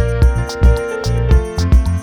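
Background music with a steady beat over sustained instrumental notes.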